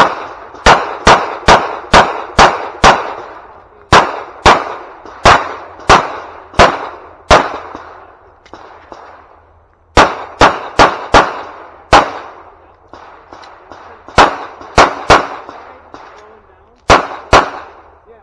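Glock 17 9mm pistol fired in rapid strings: about thirty sharp shots, roughly three a second, in five or six bursts with short pauses between. Each shot has a short echo.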